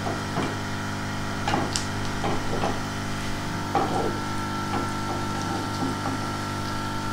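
Wooden spatula scraping and knocking now and then in a nonstick frying pan as chopped garlic fries in butter, over a steady background hum with a faint high whine.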